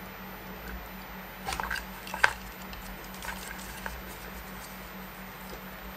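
Spring-loaded alligator clips on a battery charger's leads being handled and clipped onto a sealed lead-acid battery's terminals: a few light clicks and rattles, the sharpest about two seconds in, over a steady low hum.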